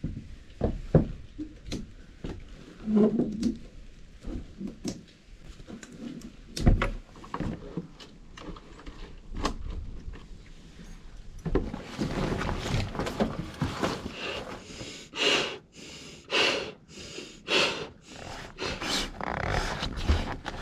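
Camping gear being handled while setting up camp: scattered knocks and thunks, then, from a little past halfway, a dense run of irregular rustling.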